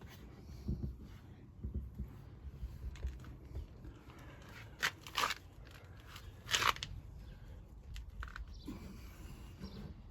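Scattered rustling and crunching handling noises, with two louder short scrapes about five and six and a half seconds in, as a plastic external vent is pressed into its silicone-sealed hole in the van wall.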